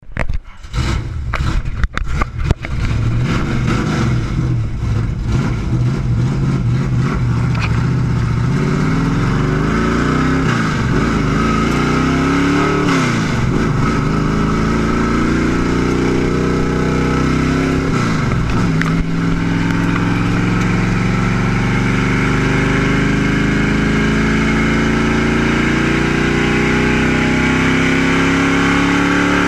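Stock race car's V8 engine heard from inside the cockpit, running hard at speed; its pitch dips twice and climbs back as the driver lifts off and gets back on the throttle. The first couple of seconds hold irregular knocks and bumps against the camera.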